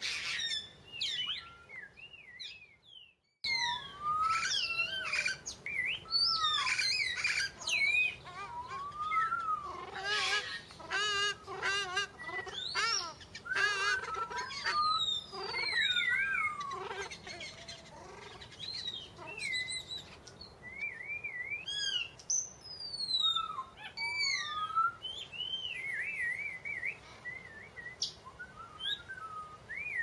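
Songbirds singing: a dense run of varied chirps, whistles and quick rising and falling calls, broken by a short near-silent gap about three seconds in.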